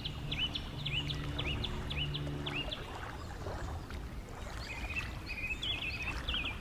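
Songbird singing a short rising chirp repeated about twice a second, then a different warbling phrase near the end, over a steady background rush of outdoor noise. Soft sustained music sits underneath for the first few seconds, then stops.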